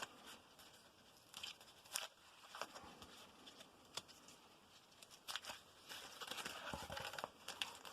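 Faint crinkling, tearing and light clicks of a mail package being opened and the cards inside handled, in short scattered bursts that get busier near the end.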